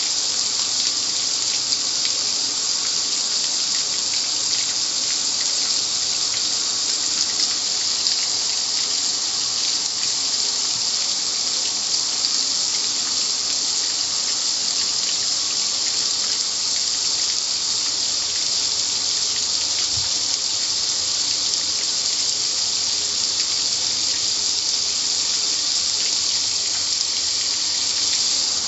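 Car wash water jets spraying steadily, a constant high hiss that does not let up.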